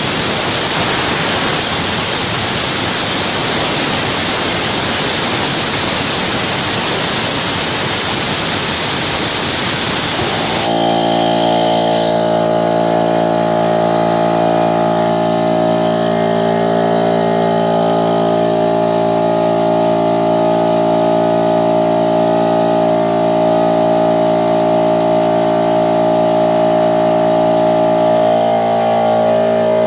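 Compressed air hissing out steadily as a Chinese piston air compressor's tank is bled down from over 8 atmospheres. About ten seconds in, the hiss cuts off abruptly and the compressor runs with a steady, even hum as it pumps back up.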